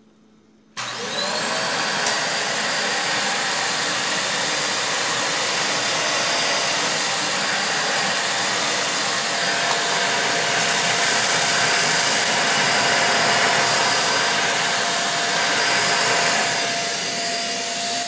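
A Mondial Cyclone Stick 1000 stick vacuum cleaner is switched on just under a second in, spinning up with a rising whine, then runs steadily with a high whine. It is picking up spilled rice and oregano from a tiled floor.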